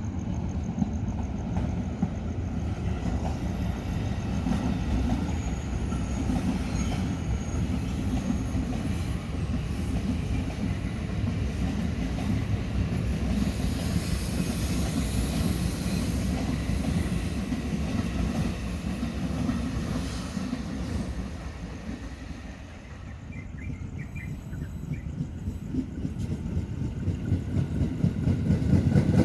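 A passing train running over the rails: a steady rolling rumble of wheels on track, with faint thin high wheel squeals at times. The rumble eases about 22 s in, then builds again near the end.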